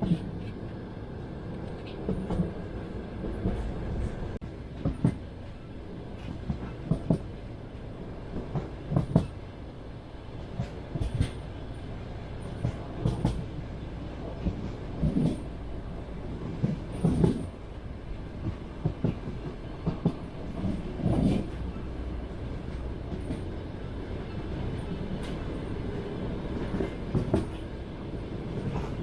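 Passenger train wheels knocking over the rail joints: clickety-clack beats about every two seconds over a steady low rumble of the moving carriage.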